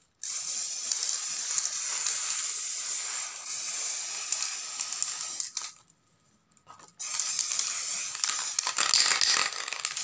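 Aerosol spray-paint can spraying onto a wire basket in two long hisses, with a break of about a second a little past the middle.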